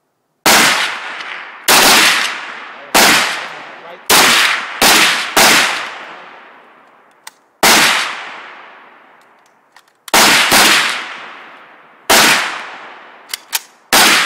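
About eleven gunshots fired in an uneven string, each a sharp crack followed by a long echo dying away over about a second; none sets off the exploding target. A few faint clicks fall between some of the shots.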